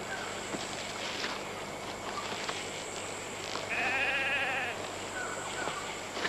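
Jungle ambience with a single wavering, warbling animal call lasting about a second near the middle, then a couple of faint short chirps.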